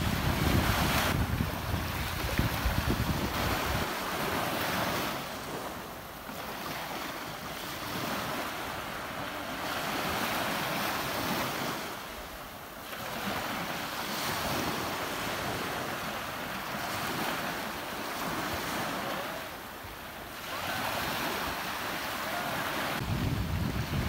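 Ocean waves washing in, the surf swelling and ebbing about every six to seven seconds. Low wind rumble on the microphone comes in during the first second and again near the end.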